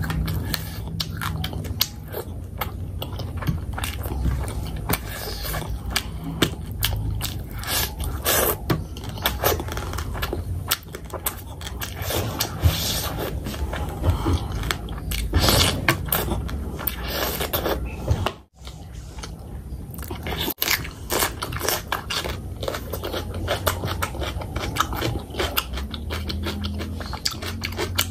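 Close-miked chewing of fish curry and rice: a continuous run of wet smacks and mouth clicks, with a brief dropout about two-thirds of the way through.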